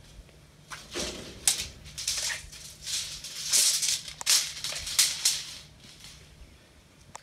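Irregular rustling, scuffing and clicking from a handheld phone being carried and moved, with footsteps on a concrete floor.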